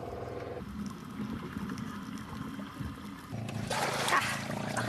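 Water splashing, loudest about three and a half seconds in, as a free diver breaks the surface beside an outrigger boat and grabs its bamboo outrigger. A low steady hum runs underneath.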